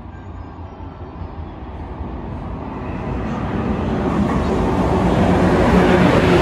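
CP 5600-class electric locomotive hauling an Intercidades passenger train, approaching and passing at speed. A rushing wheel-and-rail noise grows steadily louder, peaking as the locomotive goes by near the end, with a low hum from the locomotive.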